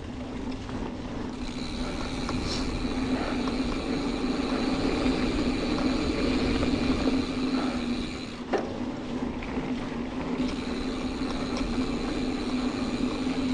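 Giant Fathom 2 29er hardtail mountain bike rolling along a dirt trail: steady tyre rumble and wind noise, with a steady high buzz, likely the rear hub freewheeling while coasting. The buzz breaks off about eight and a half seconds in and returns about two seconds later.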